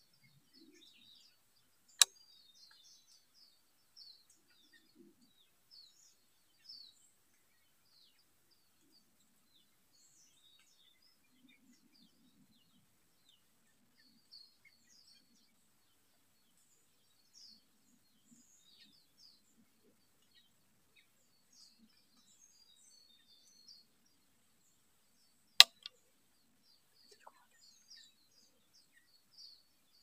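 Forest birds calling in faint, scattered high-pitched chirps, broken twice by a single sharp click, about two seconds in and again near the end.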